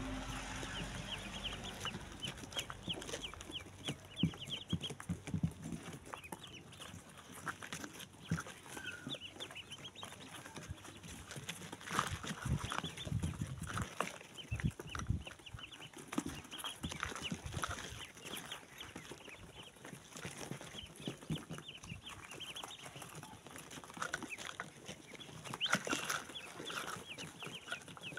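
A boxful of domestic ducklings peeping continuously, many short high peeps overlapping, with occasional low thumps and scuffs among them.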